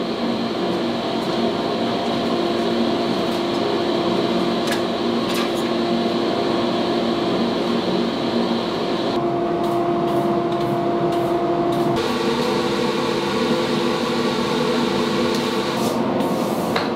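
A steady mechanical hum with a hiss, holding a few level tones that change abruptly twice partway through.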